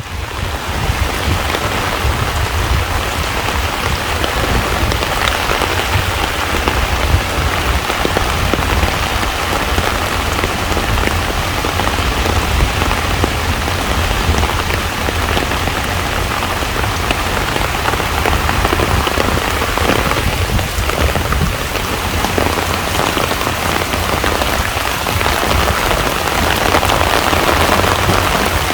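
Heavy rain pouring onto a pond's surface: a dense, steady hiss of countless drops, with a low rumble underneath.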